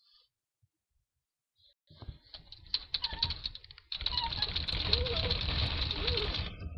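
Loud, close rustling and scratching with clicks, starting about two seconds in and getting louder about four seconds in, with a few short whimpers from a puppy underneath.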